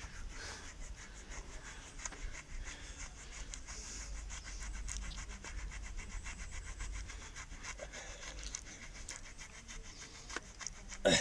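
A grooming brush scratching rapidly back and forth over a Clydesdale horse's coat at the withers, in quick even strokes. A brief louder sound comes right at the end.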